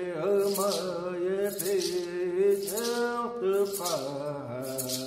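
A man chanting a Hopi song in a low, held voice that slides between notes, with a hand rattle shaken about once a second as a steady beat.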